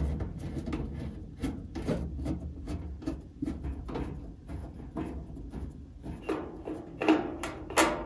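Screwdriver turning out the screws of a furnace's sheet-metal access panel: a run of small irregular clicks and scrapes, with a couple of louder knocks near the end.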